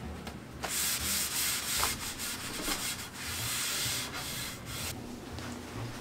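Paper towel rubbing and wiping over a ceramic floor tile, several seconds of scrubbing strokes that stop near the end.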